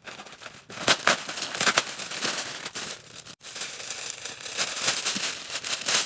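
Mailer packaging being torn open and crinkled by hand, a dense run of crackling and tearing with a short pause about halfway through.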